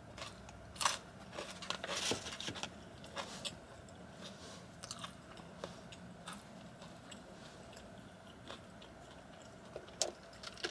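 Close-up chewing of a last mouthful of In-N-Out animal-style fries: short wet clicks and crunches of the mouth, thickest in the first few seconds and then thinning out to an odd click.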